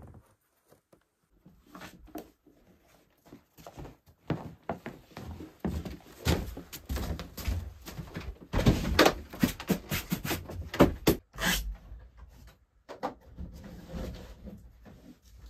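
Irregular knocks, thuds and scrapes of someone moving about on wooden floorboards and handling a wooden door. The knocks start after a second or so and are thickest and loudest in the middle.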